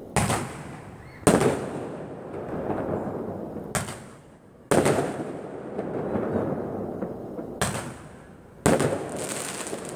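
Fireworks display: a series of loud aerial shell bursts, about six bangs in ten seconds, each followed by a long rolling echo.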